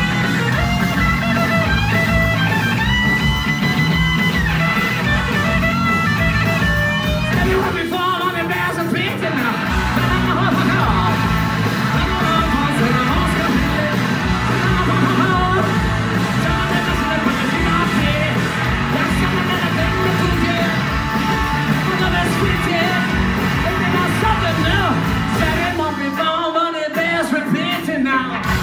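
Live blues-rock band playing loud: electric guitar over bass and drums, with vocals on top. The low end drops out briefly near the end before the band comes back in.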